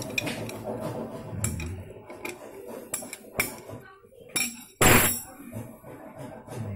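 Metal clinks and taps of hand tools working on a motorcycle engine's valve tappet caps on the cylinder head, with one louder scraping clatter about five seconds in.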